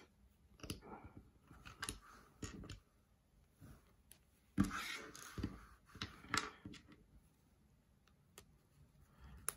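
Plastic Lego-compatible building bricks being handled and pressed together: scattered sharp clicks and short plastic rattles and rustles, the loudest about halfway through.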